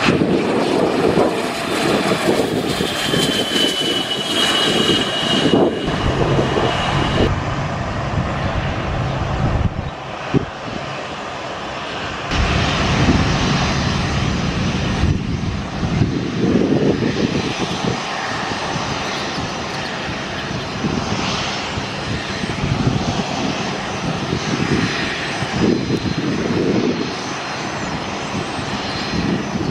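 Business jet engines running as a jet lands, with a thin turbine whine falling in pitch during the first few seconds. About seven seconds in, the sound changes to a Bombardier Challenger 600-series business jet taxiing on idling turbofans, steady with gusty swells.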